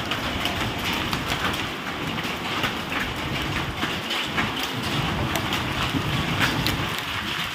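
Heavy hailstorm rain: a steady hiss with many sharp, irregular ticks of hailstones striking.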